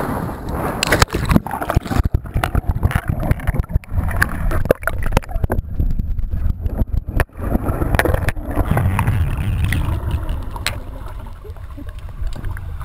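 Underwater sound picked up through a waterproof action camera's housing: a muffled low rumble of moving water and bubbles, with many sharp crackles and knocks from water and handling against the case.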